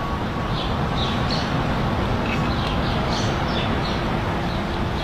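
Outdoor ambience: a steady low rumble like distant traffic, with small birds chirping briefly now and then.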